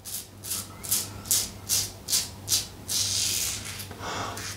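Alpha Outlaw Evolution double-edge safety razor scraping through lathered stubble in short, crisp strokes, about two or three a second, then a couple of longer strokes near the end.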